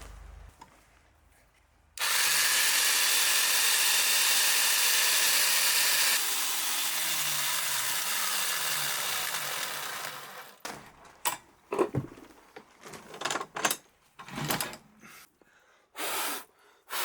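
An electric power tool runs at full speed for about four seconds, then is switched off and spins down with falling pitch over several seconds. Scattered knocks and clicks of handling wood and tools follow.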